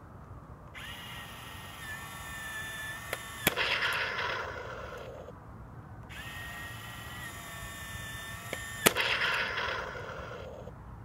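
A toy RC tank's motorised BB cannon cycling twice. Each time a steady electric whine runs for a couple of seconds, then a sharp crack, the loudest sound, then about two seconds of rattling noise.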